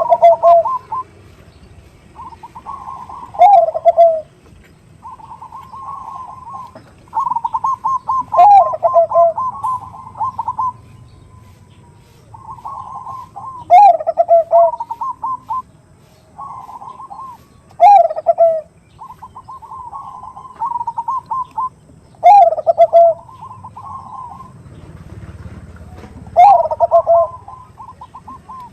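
Perkutut bangkok (Thai-bred zebra dove) cooing in repeated phrases, one about every three to four seconds. Each phrase is a quick run of soft notes with a lower falling note in it.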